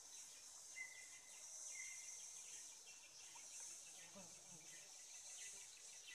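Faint, steady high-pitched drone of rainforest insects, with two short whistled bird notes about one and two seconds in.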